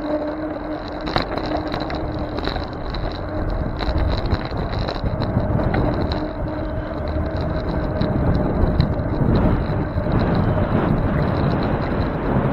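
Wind and road rumble of a bicycle ride, heard through a bike-mounted camera's microphone, with a steady low hum that fades out about two-thirds of the way through.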